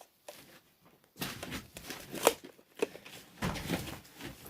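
Handling noise as toys are picked up and moved: irregular rustling with a few sharp clicks, the loudest about halfway through.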